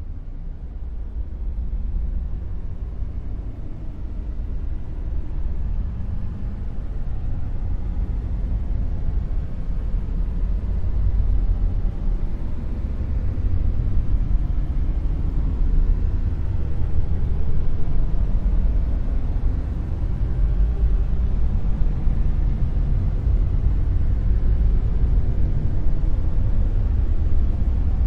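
Dark noise: a steady, deep rumbling hiss with most of its weight in the bass and little treble, slowly swelling louder.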